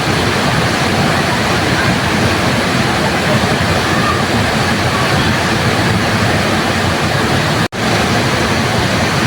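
Steady, loud rush of a waterfall, an even wash of falling water. About three-quarters of the way through it cuts out for an instant and comes straight back.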